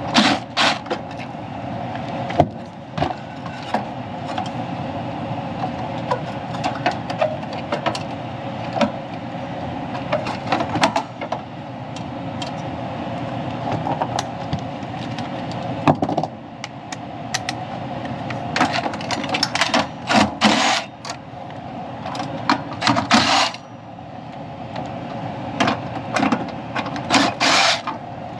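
A cordless driver and hands at work on a furnace's inducer fan motor housing: repeated clicks and knocks, and several short bursts of noise, over a steady hum.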